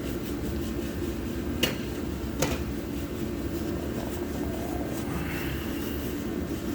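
Steady low background hum with two sharp clicks a little under a second apart.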